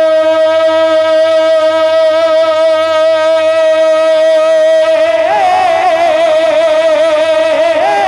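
A man singing one long held note through a PA microphone in tarannum-style nazm recitation. The note stays steady for about five seconds, then breaks into wavering, ornamented runs around the same pitch.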